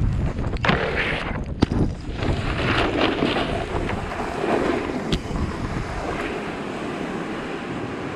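Snowboard sliding and carving over snow: a steady rushing hiss that swells and eases with the turns, mixed with wind buffeting the camera's microphone. A few sharp clicks along the way.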